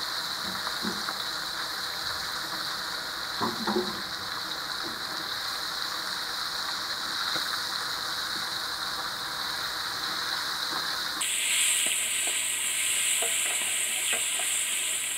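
Crab pieces and crab shells deep-frying in hot oil in a wok: a steady sizzling bubble that turns sharper and a little louder about eleven seconds in. A spatula and tongs knock against the wok a few times while stirring and turning the pieces.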